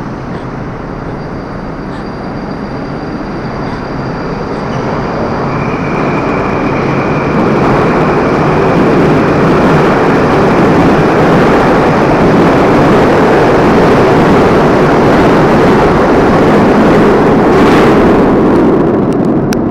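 Moscow Metro Moskva-2020 train pulling out of the station and running past along the platform. It gets louder as it gathers speed, with a steady high whine from about five seconds in, then rushes loudly past until it clears the platform near the end.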